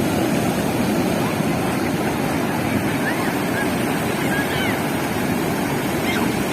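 Sea surf washing steadily onto the beach, a constant rushing noise mixed with wind on the microphone.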